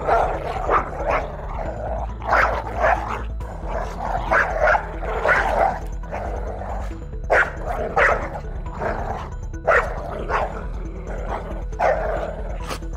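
A pack of African wild dogs yelping and chattering in short, irregular bursts over steady background music.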